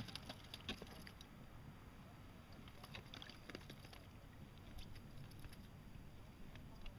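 Faint, irregular clicks of a fishing reel being wound in, with light water sounds around an inflatable pontoon boat.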